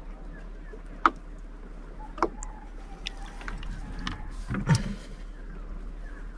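Scattered light knocks and clicks, roughly one a second, with a louder, deeper thump about four and a half seconds in, over a steady low rumble.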